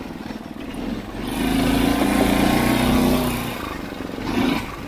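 Murray Kilowatt's 6.5 hp Tecumseh single-cylinder engine, governor removed, running under way. It grows much louder about a second in, holds for about two seconds, then fades again, with a short swell near the end.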